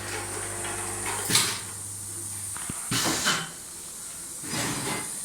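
Vertical packaging machine running: a steady motor hum that stops a little over halfway through, with short hissing bursts and a click from its cycling mechanism.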